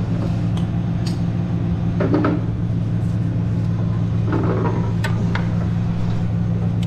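Tow truck engine idling with a steady low hum, with a few light clicks and knocks over it.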